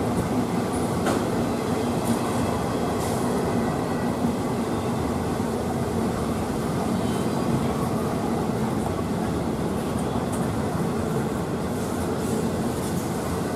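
Florida East Coast intermodal freight train rolling past at speed: a steady rumble of steel wheels on the rails, with light clicks and a faint high wheel squeal now and then.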